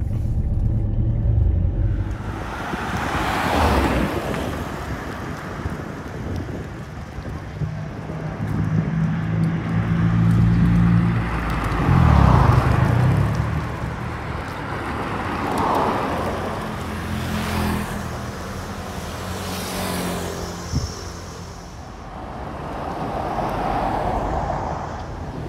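Road traffic: a low engine hum with vehicles passing one after another, about six swells of tyre and engine noise that build and fade. A single sharp click near the end.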